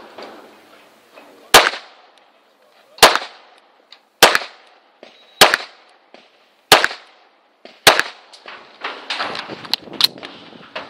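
Tanfoglio Stock 2 Xtreme 9mm pistol firing 115-grain Winchester factory rounds: six single shots spaced a second or more apart, each ringing briefly. Lighter knocks and clatter follow near the end.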